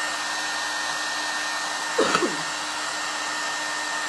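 Handheld hair dryer running steadily, a rush of air with a steady high whine, blowing on freshly brushed shading paint to dry it. A brief voice sound cuts in about halfway.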